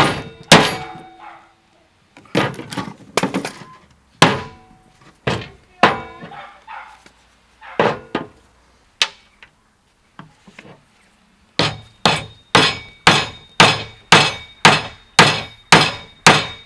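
Hammer blows on metal, each sharp strike ringing on briefly. The blows come irregularly for the first ten seconds, stop for a moment, then resume about two a second in a steady run.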